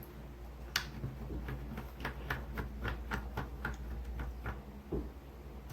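Slime being stirred in a plastic cup: a run of short wet clicks and squelches, about three a second, as the thickening glue-and-borax mixture is worked.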